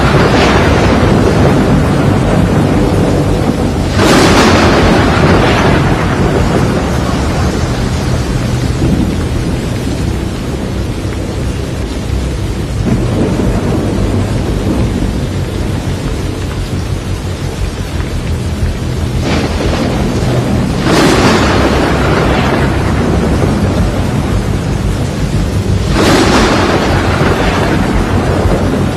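Thunderstorm with a tornado: a steady heavy roar of wind and rain, broken by about six loud thunderclaps that each crack suddenly and rumble away over a second or two.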